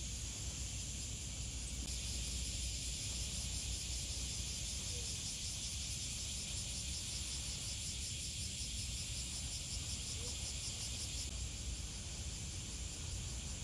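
Insects in the summer grass making a steady high-pitched buzz with a fast pulse, which eases off about eleven seconds in, over a low steady rumble.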